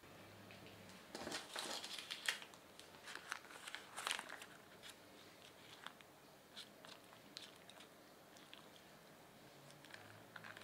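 Baking parchment crinkling and crackling as a bagel on its paper square is lowered into hot water and pressed down with a plastic slotted turner, with light clicks; the crackles are densest in the first four seconds or so, then thin out to faint ticks.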